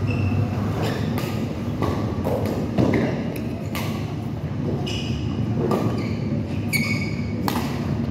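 Badminton rackets smacking a shuttlecock back and forth in a doubles rally, a sharp hit roughly every second, with sneakers squeaking and shuffling on the court floor over a steady low hum.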